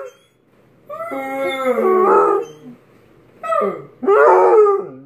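Basset hound howling: one long howl that slides down in pitch, then two shorter howls close together near the end.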